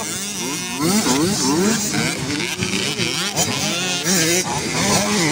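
Several 85cc two-stroke motocross bikes racing on a dirt track, their engines revving up and dropping back again and again as the riders work the throttle and shift, the notes overlapping.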